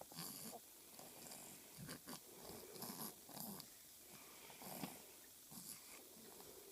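Newborn baby's faint, congested breathing: a string of short, irregular snuffles and grunts through a stuffy nose, the sign of a head cold.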